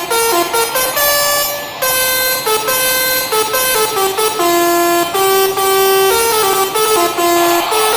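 Bus telolet horn, a multi-tone air horn playing a fast melody of held notes that step up and down in pitch every fraction of a second without a break.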